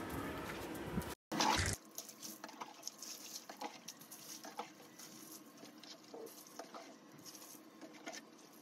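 Faint, irregular patter of water splashing and dripping as a soapy German Shepherd is scrubbed and rinsed with water poured from a mug, with a brief louder noise about a second in.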